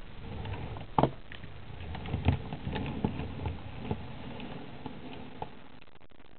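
Handling noise: a few light clicks and knocks over a low rustle, dying away near the end.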